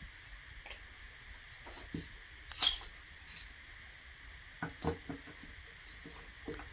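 Bronze bore brush on a brass cleaning rod being pulled through a 9 mm pistol barrel, with scattered scrapes, clicks and clinks of metal on metal. The loudest knock comes about two and a half seconds in, and two more come near five seconds.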